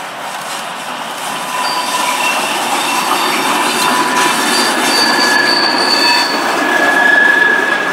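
Heritage passenger train of old coaches passing close by, its wheels squealing in long steady high tones over the rumble of the running gear, growing louder as it nears.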